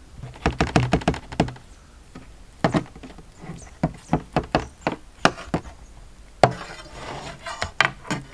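Knife cutting and chopping at a raw beef leg on a metal tray: a series of sharp knocks, a quick run of strikes in the first second or so, then scattered single strikes, the loudest about six and a half seconds in.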